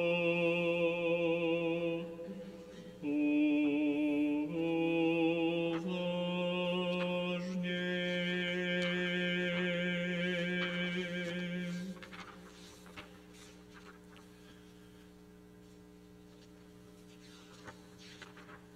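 A single male voice chanting a liturgical phrase unaccompanied, holding long notes that change pitch every second or two, with a short break about three seconds in. The chant stops about twelve seconds in and leaves the quiet hum of the church, with a couple of faint knocks.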